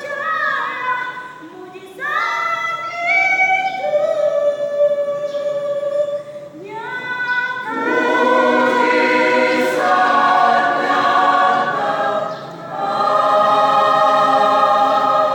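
Church choir singing in several parts, phrases rising into long held chords, with a short breath about two-thirds of the way through before a final sustained chord near the end.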